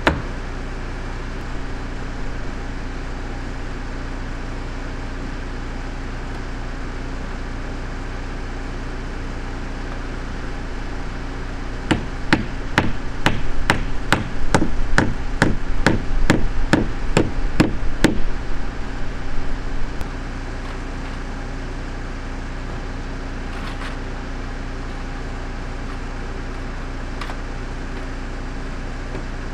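Hammer driving nails into plywood siding: a quick, irregular run of blows about twelve seconds in, lasting some eight seconds, over a steady low hum.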